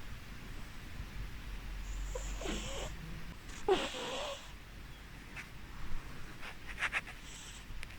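A sleeping cat squeaking and breathing noisily while it dreams: two breathy squeaks with a rising pitch, about two and four seconds in, the second the loudest, then a few short ticks and a fainter breath near the end.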